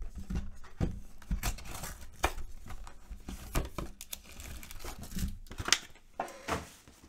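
A 2020 Panini Select football hobby box being torn open and its foil card packs crinkling as they are pulled out and handled: an uneven run of sharp crackles and rustles.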